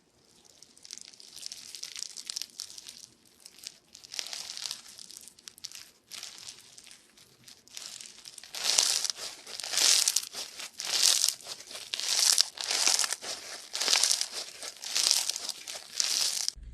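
Slime being squeezed and pressed by hand, making a crackly, crinkling sound. From about halfway it settles into regular squeezes, roughly three every two seconds, then stops abruptly near the end.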